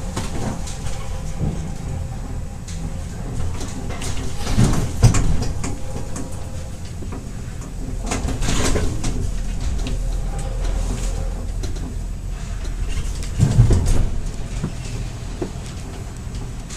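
Funicular car running along its rails: a steady low rumble with louder clatters about five, nine and fourteen seconds in.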